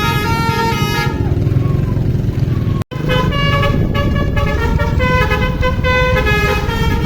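A bus's basuri horn, a melodic multi-tone horn, playing a tune in stepped notes over low engine rumble. The tune breaks off about a second in. The sound cuts out for an instant near three seconds, and the tune starts again.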